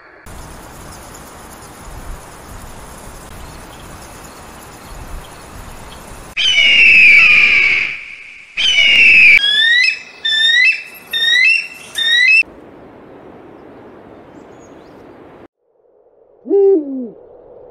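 A steady rushing noise, then a red-tailed hawk's hoarse, falling screech twice, followed by four shorter, rising calls. Near the end an owl gives two low, falling hoots.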